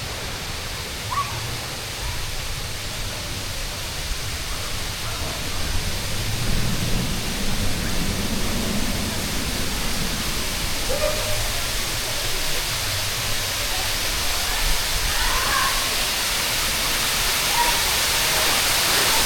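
Steady rush of splashing, falling water from water park features, slowly growing louder, with faint scattered voices of people.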